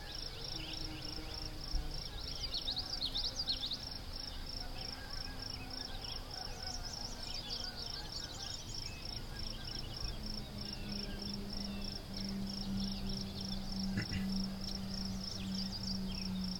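Field ambience: a steady, high, evenly pulsing trill with small birds chirping over it. A low steady hum comes in about ten seconds in.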